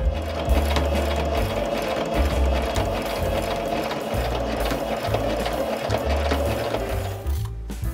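Electric sewing machine stitching a seam through cotton canvas at a steady speed, stopping about seven seconds in.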